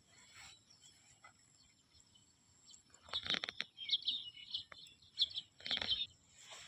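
Short, high bird chirps about four to five seconds in, between two brief bursts of rustling, scraping noise about three and six seconds in.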